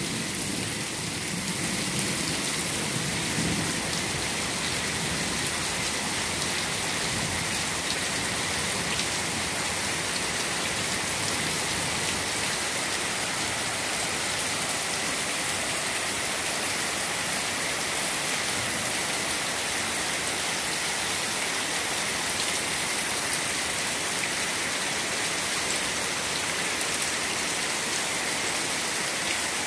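Heavy tropical rain pouring steadily onto a flooded concrete yard, a constant hiss of drops splashing into standing water. Thunder rumbles low in the first few seconds.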